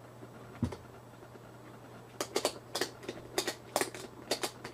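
Ratchet-strap buckle being worked by hand: a duller knock, then a run of sharp ratchet clicks, some in quick pairs, as the strap is cinched tight around the tire's tread to push the bead out onto the rim. A faint steady hum sits underneath.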